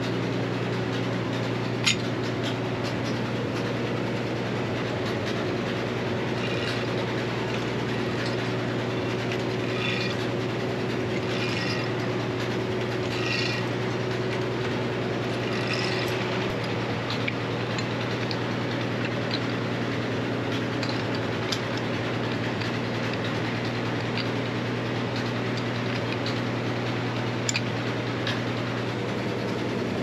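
Frick sawmill running with a steady, even mechanical drone and hum while the saw is not cutting. Two sharp knocks, one about two seconds in and one near the end.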